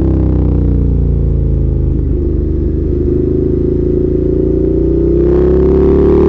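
Ducati Monster 1200S's L-twin engine under way, picked up by a mic in the rider's jacket pocket. The revs fall for about two seconds, run rough and low for a moment, then climb again from about five seconds in as it accelerates.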